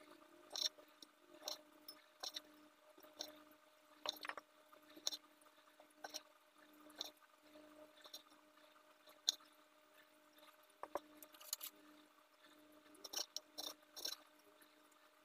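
Knife slicing cherry tomatoes and cucumber on a wooden cutting board: faint, irregular taps of the blade against the board, about one a second, the sharpest a little past the middle. A faint steady low hum runs underneath.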